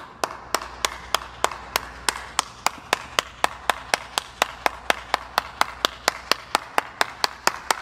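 One person clapping hands in a steady, even rhythm, about four claps a second.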